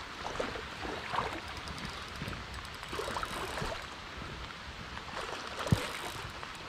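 River current running over stones, with irregular sloshing and splashing as someone wades backward through the water, and one sharp knock a little before the end.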